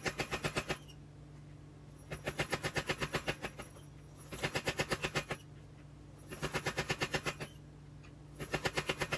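Mechanical power hammer striking hot car-axle steel as it is drawn out, in five quick runs of about ten blows a second with short pauses between, over the steady hum of the hammer's motor. The footage is sped up, so the blows come faster than the hammer really runs.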